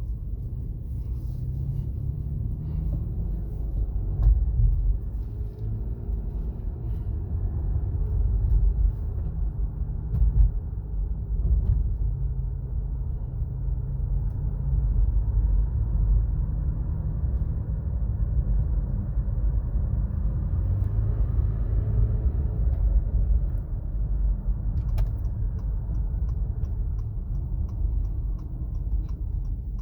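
2017 Acura MDX driving at speed, heard from inside the cabin: a steady low road and drivetrain rumble, with a faint higher whine swelling and fading about two-thirds of the way through. The owner is chasing this speed-related whine and places it at the front passenger side. Near the end a regular fast ticking starts.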